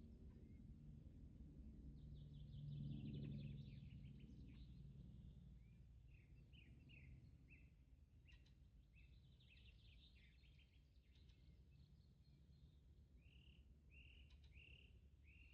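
Faint birdsong: many quick chirps and short trills from several birds, over a low steady hum that swells briefly about three seconds in.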